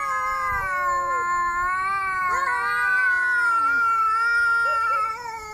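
Angry cat yowling: one long, drawn-out, wavering call that fades about five seconds in.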